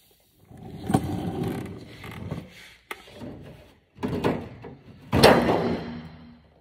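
Sheet metal being worked by hand as aircraft skin is taken off: several bursts of scraping and rattling, the loudest starting sharply about five seconds in.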